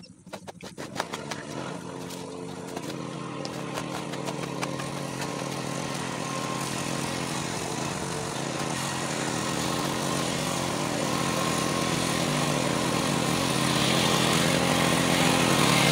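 A small engine running steadily and growing louder throughout. In the first seconds a spade knocks and scrapes in loose soil.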